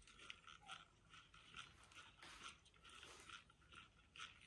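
Near silence, with faint, brief scratchy sounds a few times a second.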